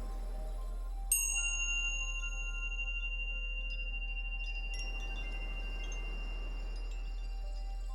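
Chimes ringing over a steady deep low tone, the 40 Hz layer of a sound-therapy track. About a second in, one chime is struck sharply and rings on high and clear for several seconds, with softer scattered chime notes around it.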